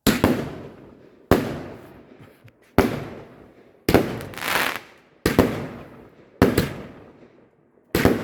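Aerial fireworks bursting overhead: seven loud bangs at a fairly regular pace, about one every second and a half, each trailing off in an echoing rumble. A crackling hiss swells up after the fourth bang.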